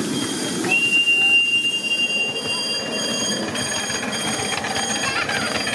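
Rumble of a 5-inch gauge miniature train running on the track. About a second in, a single steady high-pitched steam whistle sounds for about two seconds, and the miniature steam locomotive's running noise follows.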